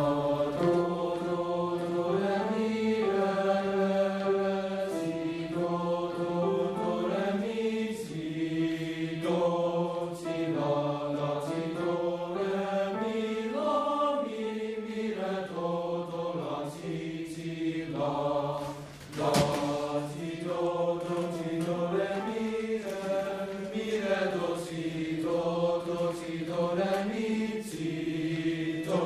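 A choir of teenage boys singing sustained chords in several parts, the voices moving together from chord to chord over a steady low part. A single sharp knock sounds about two-thirds of the way through.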